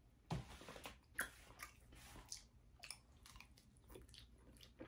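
A person chewing a mouthful of fettuccine Alfredo: faint, wet mouth sounds with scattered short clicks.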